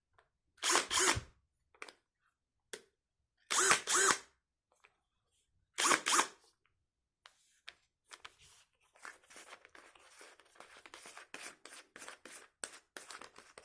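iBell BM 18-60 brushless cordless drill triggered in three short bursts, the motor whining up to speed and spinning down each time. It is followed by a long run of quick small clicks and rattles.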